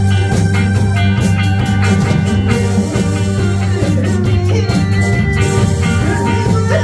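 Live band playing a Korean trot song, with a drum kit keeping a steady beat, electric guitar, bass guitar and keyboard; a woman's singing voice through a microphone joins in partway through.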